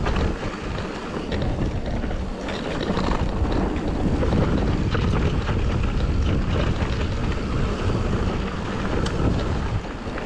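Wind buffeting the microphone of a GoPro on a mountain bike riding down a dirt trail, over the steady rush of the tyres, with scattered short clicks and rattles as the bike goes over rocks and roots.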